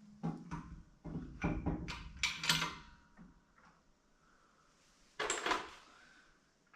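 Metal pump parts and a seal-pressing tool being handled on a workbench: a quick series of clinks and clunks over the first three seconds, then a short scraping rustle about five seconds in.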